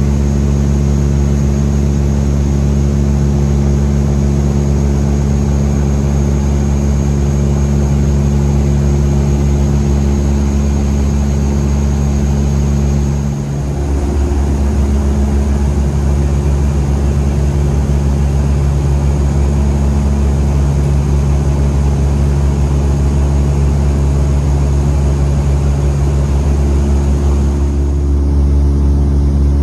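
Cabin drone of a Dash 8-Q200 turboprop airliner in flight: a steady, loud low hum of several stacked tones from its propellers and engines. It dips briefly about halfway through.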